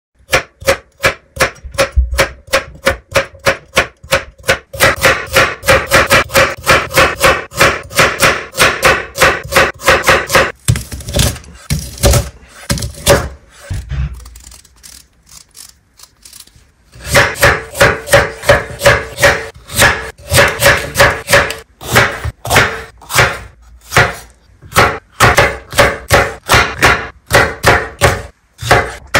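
A knife chopping on a cutting board in quick, regular strikes, a few a second. The strikes thin out to softer, scattered knocks for several seconds in the middle, then pick up again.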